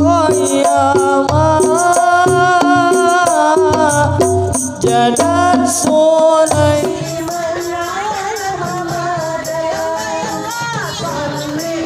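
Islamic devotional song (sholawat) sung over hand-drum and tambourine-style jingle percussion. About seven seconds in it turns quieter, the deep drum beats drop out, and the singing goes on.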